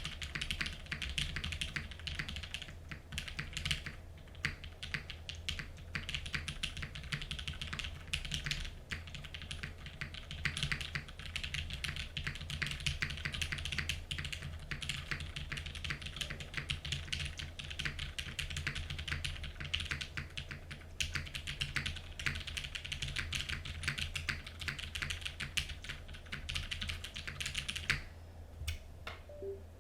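Steady fast typing on a custom mechanical keyboard with heavily lubed Cherry MX Black linear switches, an aluminium plate and GMK keycaps, with a low thud from the desk carrying through under the keystrokes. The typing pauses briefly near the end, then resumes.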